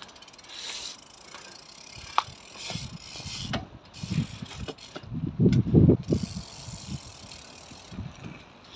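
Bicycle freewheel hub ticking as the bike coasts slowly. Gusts of wind buffet the microphone, loudest about halfway through.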